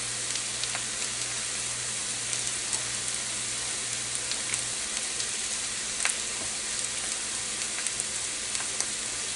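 Steady hiss with a low hum, and a few faint ticks of a chef's knife touching a plastic cutting board as it slices pork tenderloin open.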